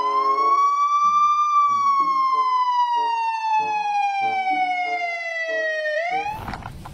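Police car siren wailing: one long, slow cycle that rises for a moment, falls steadily for several seconds, then sweeps quickly back up near the end before cutting off.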